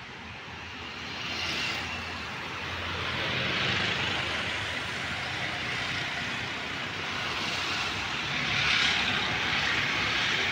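Dhaka city road traffic: a steady rush of engines and tyres that grows louder over the first few seconds. Passing vehicles swell it about one and a half seconds in and again near the end.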